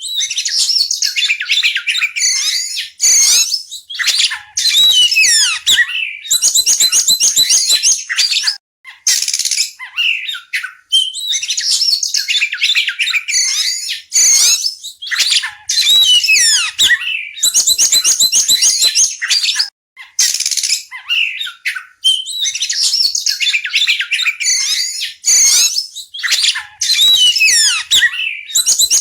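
Oriental magpie-robin singing loudly: a varied song of whistles, chirps and sweeping notes, with fast runs of repeated notes, sung in phrases with short breaks between them.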